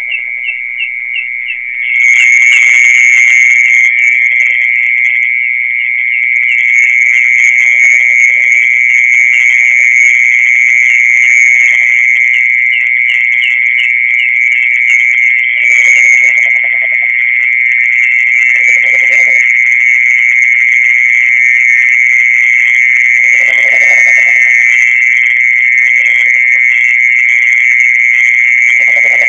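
Continuous high-pitched trill of a mole cricket, the night sound popularly called the 'earthworm sound' in Indonesia: one steady, unbroken buzzing tone that gets louder about two seconds in. Faint low calls come through underneath now and then.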